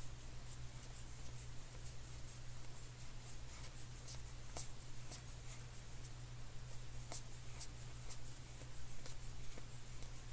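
2020 Topps Heritage baseball cards being flipped through one by one in the hands: a quick, irregular run of light flicks and slides of card stock, over a steady low hum.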